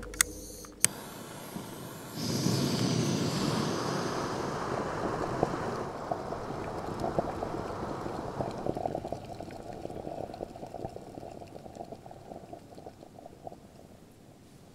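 Two sharp clicks, then about two seconds in a small screw-on canister gas stove lights with a sudden hiss. Its burner hisses steadily and gets quieter in steps as the valve is turned down, with faint crackling ticks.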